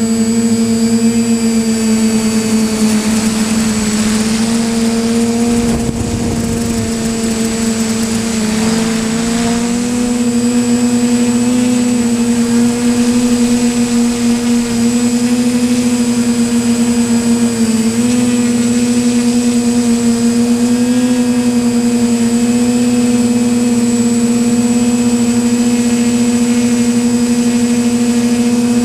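Multirotor drone's propellers buzzing steadily in flight, a loud even drone-motor hum with small dips in pitch, and a brief rush of wind noise around six to nine seconds in.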